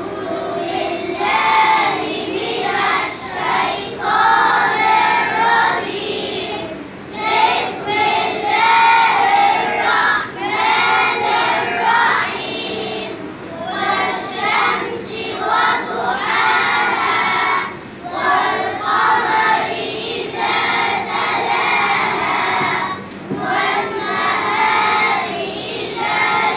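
A group of schoolchildren singing together in unison, in short phrases with brief breaks between them.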